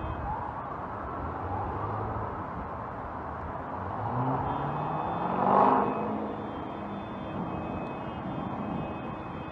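Floodwater rushing down a street in a steady roar of noise. About four seconds in, a motor vehicle's engine rises in pitch and grows louder, peaking a little before six seconds, then fades.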